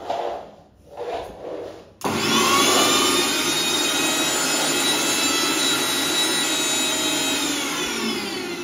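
Electric mixer grinder switched on about two seconds in: the motor spins up with a rising whine, runs loud and steady at full speed, then starts to wind down near the end.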